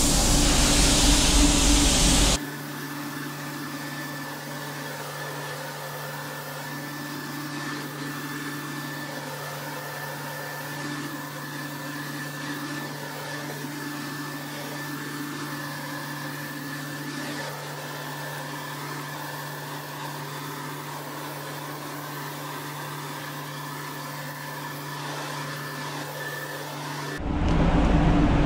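Paint spray gun hissing for about two seconds, then cutting off to the steady hum of the spray booth's ventilation; the loud air hiss starts again near the end.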